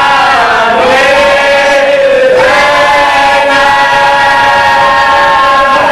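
A marsiya chanted by men's voices with no instruments: long held notes that slide down about half a second in, then swoop back up a little past two seconds and hold.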